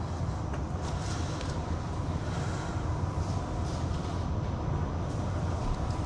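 Steady low background rumble with a few faint clicks over it.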